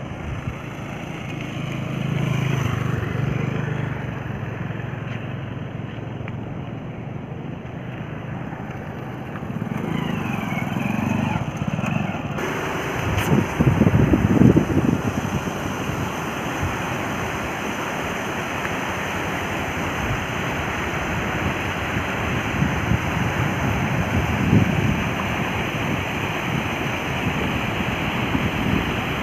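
A vehicle engine hums for about the first twelve seconds. Then a steady rush of river water pouring over broken rocks takes over, with wind gusting on the microphone, loudest a little after the change.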